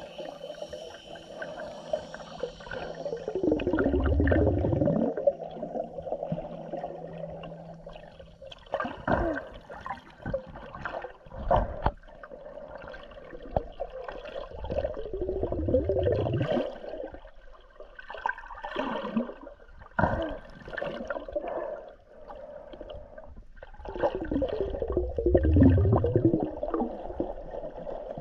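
Underwater water sound picked up by a camera in a waterproof housing, muffled sloshing and gurgling. Three louder rushing swells come about ten seconds apart, with a few sharp knocks in between.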